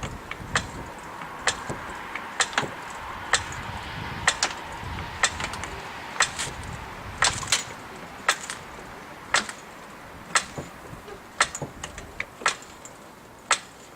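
Sharp knocks or clicks at an uneven pace, roughly one a second, over a faint hiss that fades toward the end.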